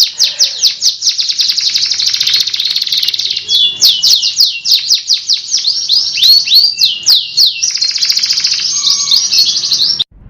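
Domestic canary singing long rolling song: fast trills alternating with runs of repeated downward-sweeping notes. The song cuts off suddenly near the end.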